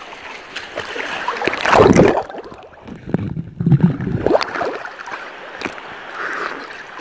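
Seawater splashing and sloshing around a phone as it is dunked under the surface and lifted out again, with two louder surges about two and four seconds in.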